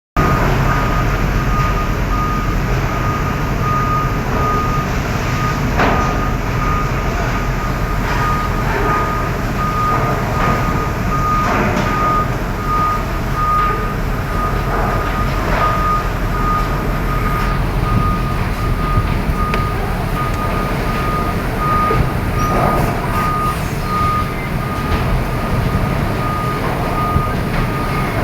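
Heavy vehicle's reversing alarm beeping over and over at one pitch, with a diesel engine running underneath.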